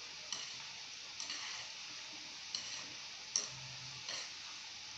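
Marinated cauliflower pieces deep-frying in hot oil in a metal kadai: a steady sizzle, with about four light clicks of a ladle stirring against the pan.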